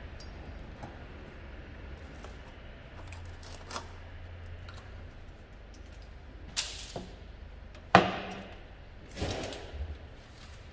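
A few separate knocks and clatters of tools and parts being handled during hands-on tractor repair work, over a steady low hum. The loudest is a sharp knock about eight seconds in that rings briefly. A rougher clatter follows about a second later.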